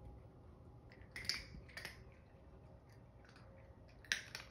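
A few short, faint scratchy rustles, about a second in, near two seconds and about four seconds in: small chihuahua puppies scrabbling about on blankets.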